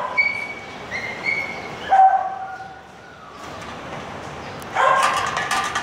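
Dog whining in thin high-pitched whimpers, then a short burst of barking near the end.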